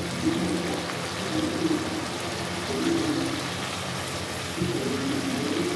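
Chopped tomatoes sizzling steadily in hot oil in a non-stick karahi while being stirred with a plastic slotted spatula.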